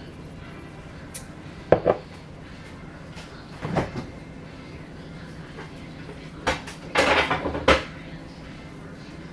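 Kitchen clatter of pots, dishes and utensils: a sharp knock, another a couple of seconds later, then a busier run of clinks and rattles about seven seconds in.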